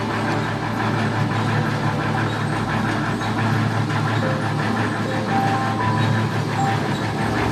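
Clay brick extrusion machinery running, a steady mechanical hum with a low drone.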